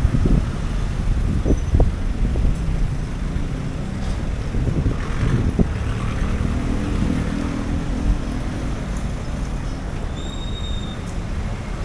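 Street traffic: a steady low rumble of passing vehicles, with an engine hum standing out for a few seconds in the middle.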